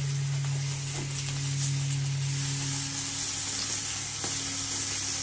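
Meat sizzling steadily on a hot barbecue grill, with a low steady hum underneath that partly drops away about three seconds in.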